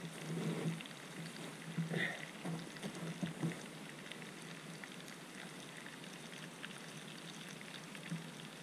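Chicken wings stewing in sour cream in a pan over a campfire: a soft, steady crackling sizzle of the fire and the bubbling pan. A few light knocks in the first few seconds as the pan is handled.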